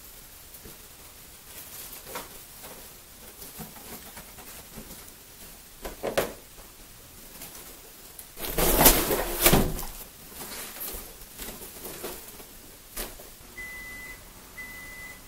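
Balloons being handled and knocked about, latex rubbing and squeaking, with a louder rustling stretch of about a second and a half around nine seconds in. Scattered light knocks, and two short high beeps near the end.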